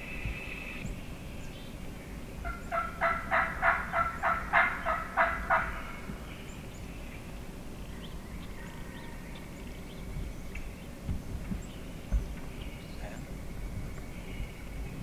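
Wild turkey gobbling: one rapid rolling run of notes, about four a second, lasting around three seconds, starting a couple of seconds in.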